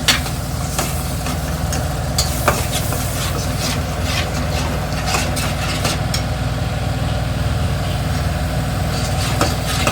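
A spatula stirring and scraping in a pan of sizzling onion-and-spice masala just mixed with sour curd, as the curry base is stir-fried (kosha), with scattered sharp scrapes and clinks of utensil on pan. A steady low hum runs underneath.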